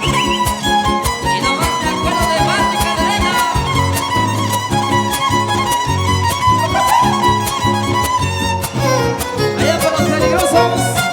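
Huapango (son huasteco) instrumental: a violin plays the melody with many slides over a fast, even strummed rhythm, typical of a huasteco trio of violin, jarana and huapanguera.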